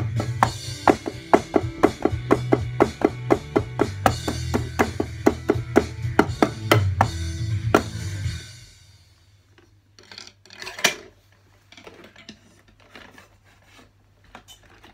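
Electronic drum kit played in a steady beat, about four hits a second over a steady low bass. The playing stops about eight and a half seconds in, leaving only a few faint taps and knocks.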